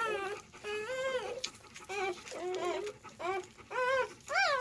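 Newborn Malinois puppy crying in a string of short, high whines, each rising then falling, about seven in a few seconds. These are the cries of a hungry newborn that cannot latch onto its mother's small teat.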